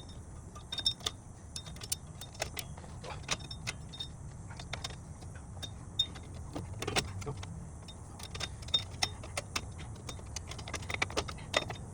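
Irregular light metallic clicks and clinks of drum-brake hardware and a brake tool being handled, over a steady low background rumble.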